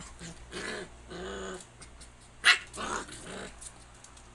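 Two dogs play-fighting, giving short growls and whines. About two and a half seconds in there is one sharp, loud yip, the loudest sound.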